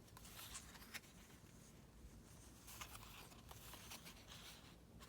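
Near silence, with faint, scattered rustles and scrapes of paper ephemera being handled.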